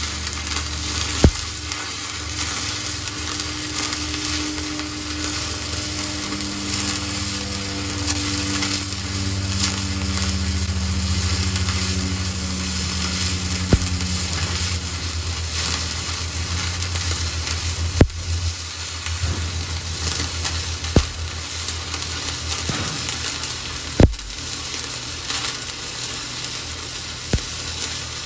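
Flux-core wire welding arc running a vertical-up pass, crackling and sizzling steadily, with a handful of sharp pops scattered through it. A low hum sits underneath for about the first half.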